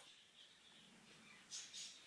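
Near silence, then about one and a half seconds in a green-cheeked conure gives two faint, short, high-pitched sounds in quick succession.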